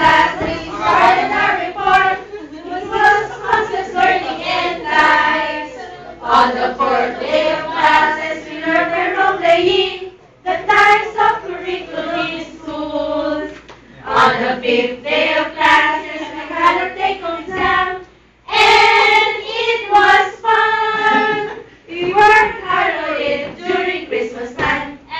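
A group of voices singing a song together, in sung phrases broken by brief pauses.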